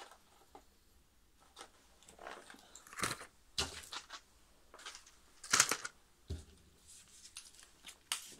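Coughing: a few short, separate coughs a second or two apart, the loudest just past halfway.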